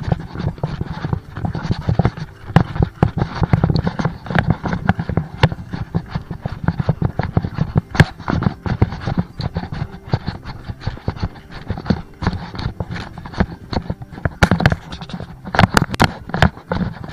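Footsteps of a hiker on a trail, mixed with knocks and rubbing from the handheld camera: a dense, irregular run of crunches and knocks.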